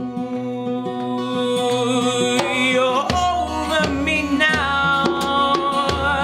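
Live band music: acoustic guitar, bass and percussion playing, with a wavering sung melody line coming in about two and a half seconds in.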